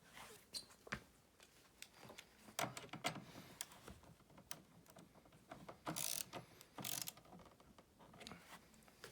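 Irregular metallic clicks and short rattling bursts of hardware being worked on a recliner's handle extension and mechanism, with three louder bursts of clatter in the middle.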